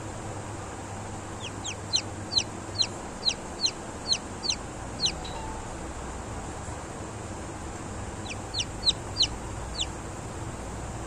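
Newly hatched Kadaknath chick peeping: a quick run of about ten high, downward-sliding peeps, a pause of a few seconds, then about six more, over the steady hiss of the incubator.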